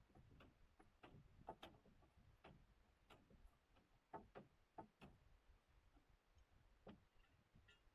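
Faint, irregular clicks and light knocks, about a dozen, scattered unevenly with the strongest near the middle.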